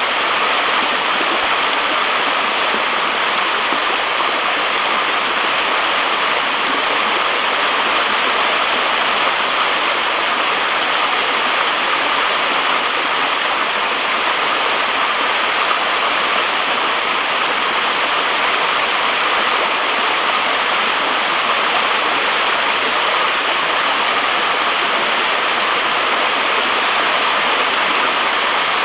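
Waterfall crashing into its pool, a steady even rush of falling water with no change in level.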